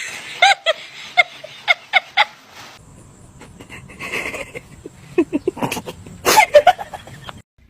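A pet animal making a quick series of short calls, in two bouts with a stretch of scuffling noise between them.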